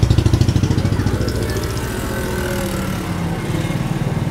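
A motor running with a rapid, even pulse.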